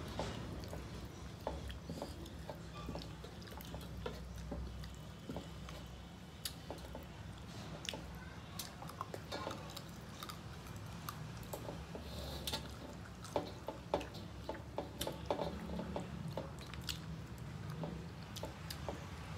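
Eating sounds of people chewing rice and curry eaten by hand, with many small scattered clicks and scrapes of fingers on metal plates, over a steady low hum.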